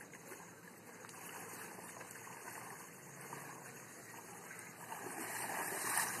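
Water sloshing and splashing around a person's legs as he wades through shallow pond water, growing louder near the end.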